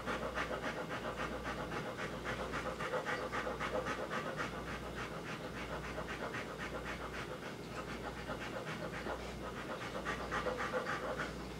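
A female Rottweiler panting in quick, even breaths.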